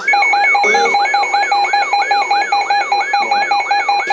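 Emergency alert alarm for a flash flood warning: a siren-like tone sweeping up rapidly about four times a second, overlaid from the start with a steady high tone and a pulsing lower tone.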